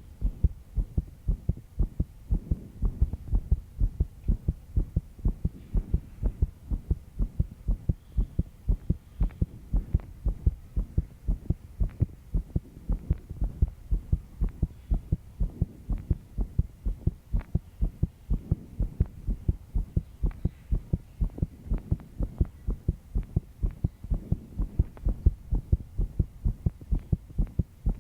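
A young woman's heartbeat, a quick, regular run of low thumps, beating fast under stress after a sleepless night.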